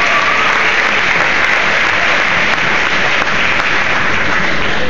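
Audience applauding, many hands clapping at once in a steady patter that eases off near the end.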